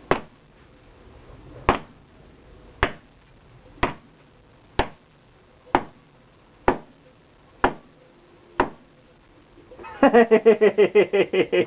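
Repeated heavy blows smashing a plastic multimeter casing, nine sharp strikes at about one a second. Near the end, a fast pitched rattling for about two seconds.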